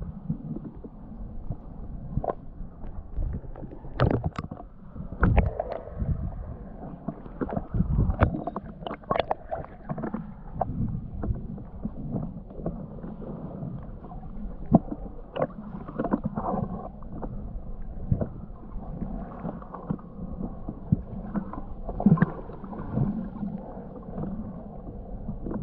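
Muffled water sounds as a snorkeller moves and dives in a river: sloshing and gurgling with a low rumble, broken by irregular knocks and clunks.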